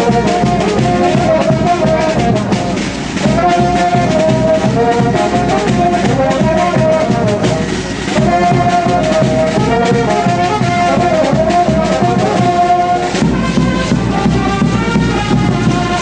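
Brass band (filarmónica) playing a Wititi dance tune: brass carrying a repeating melody over a steady drum beat. The melody line drops out about 13 seconds in while the beat carries on.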